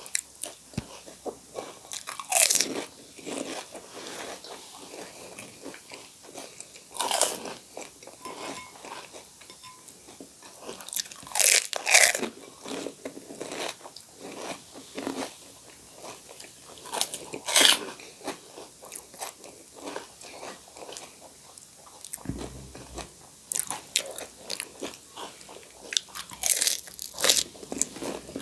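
Crisp panipuri shells crunching as they are bitten, with chewing in between. Loud crunches come every few seconds, with several close together near the end.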